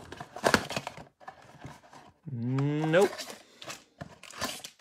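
Plastic shrink wrap crinkling and tearing as a trading-card blaster box is unwrapped and opened, with scattered crackles and clicks. A little before halfway, a man's voice gives a drawn-out "hmm" that rises in pitch at the end.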